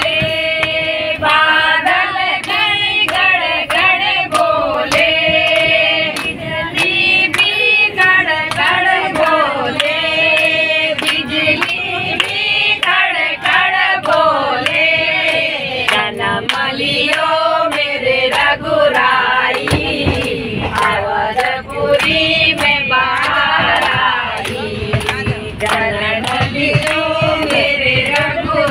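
A group of women singing a devotional bhajan together, clapping their hands in a steady beat about twice a second.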